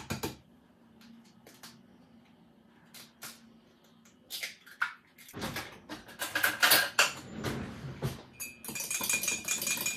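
An egg tapped sharply once on the rim of a ceramic mug, a few light clicks, then from about halfway a fork clinking and scraping rapidly inside the mug as the egg is whisked with grated cheese.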